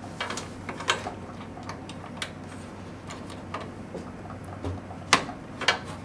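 Scattered small plastic clicks and taps as a SATA cable's connector is handled and pushed into a motherboard SATA port, with a sharper click about five seconds in.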